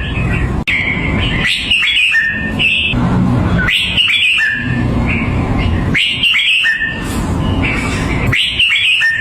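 Red-whiskered bulbul singing: a short phrase of quick, clear whistled notes, repeated four times about two seconds apart, over a steady low background noise.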